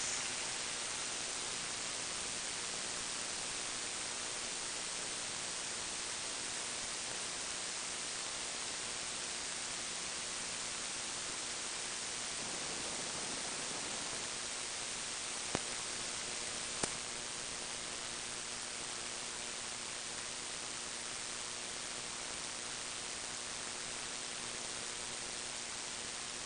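Steady hiss of recording noise with a faint hum underneath, broken by two sharp clicks about a second apart past the middle.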